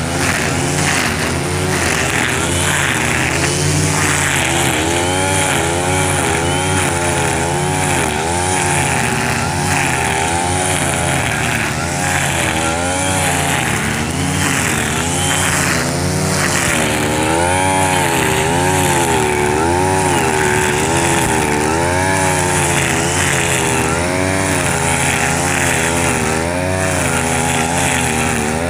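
Backpack two-stroke brush cutter running with nylon trimmer line and cutting grass. The engine pitch swings up and down about once a second as the line bites into the grass and frees up again, over a constant buzzing hiss from the spinning line.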